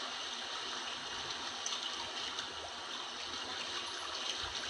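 Sea water washing and lapping against shoreline rocks, a steady hiss with no single splash standing out.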